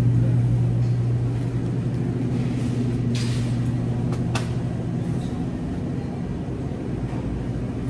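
Steady low electrical hum and rumble of supermarket background noise, from refrigeration and building machinery, easing off slightly as it goes. A few brief rustling noises come about three and four seconds in.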